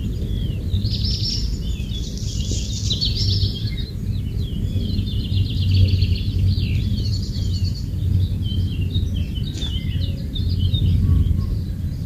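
A forest bird chorus: many overlapping chirps and short gliding calls, with stretches of rapid trills, over a steady low rumble.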